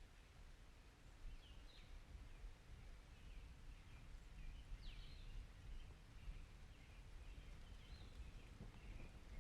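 Faint birds chirping, short sweeping calls about once a second, over a steady low rumble.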